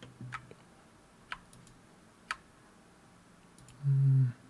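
A few sparse clicks at a computer, roughly one a second. Near the end comes a short hummed 'mm' from a man's voice, the loudest sound.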